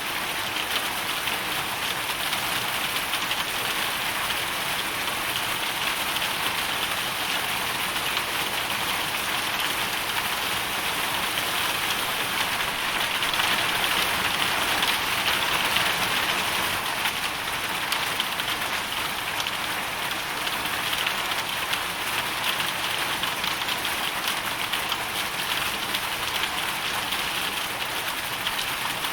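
Hailstorm: dense, steady hail and rain falling onto hard surfaces as a continuous patter of many small impacts, swelling slightly louder about halfway through.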